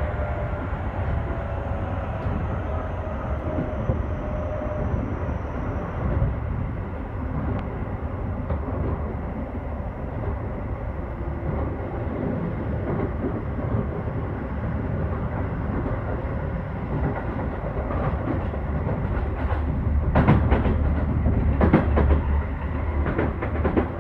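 Keio 5000 series electric train running, heard from inside the car with the phone against the window: a steady rumble of wheels on rail, with a whine falling in pitch over the first six seconds or so. About twenty seconds in comes a burst of sharp clacks as the wheels run over rail joints, the loudest moment.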